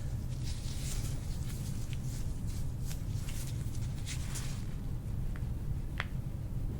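Soft rustling and rubbing of hands working through hair on a person's scalp, over a steady low hum, with one sharp click about six seconds in.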